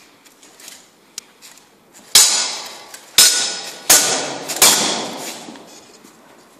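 Steel longswords striking in full-contact armoured sword fighting: four sharp metallic clashes over about two and a half seconds, each ringing on after the hit.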